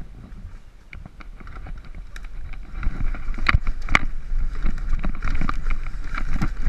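Downhill mountain bike running down a dirt forest trail: tyre rumble, wind on the microphone and the rattle of chain and frame over roots. It gets much louder about three seconds in as speed builds, with two sharp knocks soon after.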